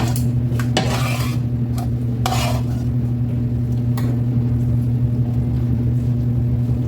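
Kitchen utensil work: a few short scrapes and clinks of a utensil against a pan or dish, about one and two and a half seconds in, with a click near the middle. A steady low electrical hum runs underneath.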